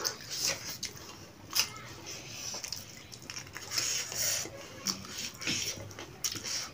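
Close-up eating sounds of people chewing chicken with their mouths open: wet chewing and lip smacking in many short, irregular clicks.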